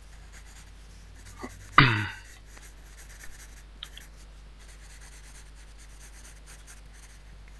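Graphite pencil shading on drawing paper, faint scratchy strokes. About two seconds in, a short, loud human vocal sound falling in pitch cuts across it.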